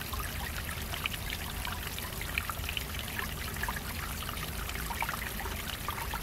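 Water trickling and dripping in thin streams over a wall of stacked stone blocks: a steady patter of many small splashes over a constant running hiss.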